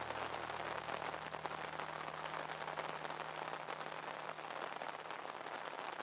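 Steady rain falling on a camping tarp overhead: a dense, even run of small drop hits.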